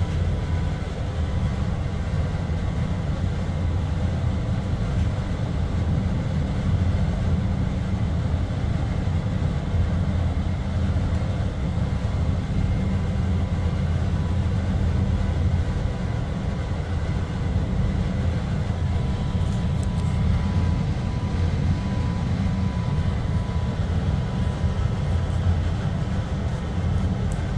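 Inside a Bombardier automated people-mover car running on rubber tyres along its guideway: a steady low rumble with a faint, even whine above it.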